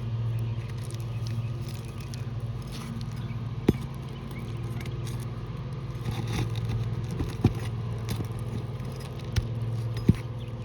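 Steady low engine-like hum throughout, with a few faint ticks and four sharp knocks spread through it, from tools working on the asphalt shingles.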